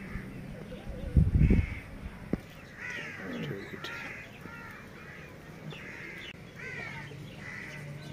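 Crows cawing repeatedly, a series of harsh calls from about three seconds in. About a second in there is a brief loud low rumble.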